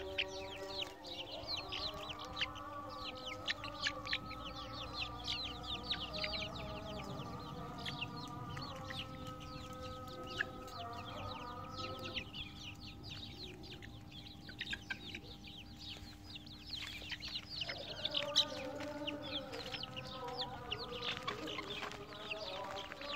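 A flock of young chickens cheeping and clucking, with many quick high chirps overlapping. The chirping thins out about halfway through and grows busy again near the end. Sustained lower notes that shift in pitch run underneath.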